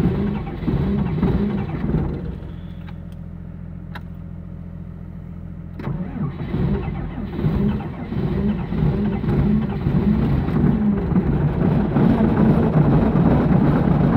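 Cummins diesel of a Timberjack 450 grapple skidder on a cold start, running unevenly. It drops to a quieter steady hum about two seconds in, picks up again about six seconds in, and runs louder and rougher toward the end.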